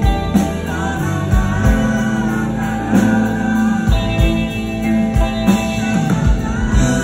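Live rock band playing: a lead guitar solo with bent, sustained notes over bass and kick drum hits.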